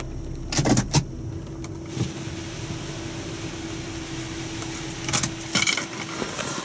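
Water spray from a NuStar soft-touch automatic car wash starting to pelt the car, heard from inside the cabin as a steady hiss over a low hum. There are a few sudden bursts near the start and a louder rush of spray about five seconds in.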